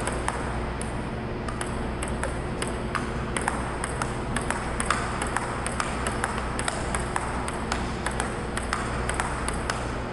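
Table tennis rally: the ball clicking back and forth off the paddles and the table, about three sharp clicks a second, over a steady low hum.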